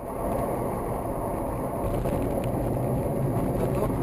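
Steady road and engine noise of a car driving at speed on a highway, as a dashcam inside the cabin picks it up.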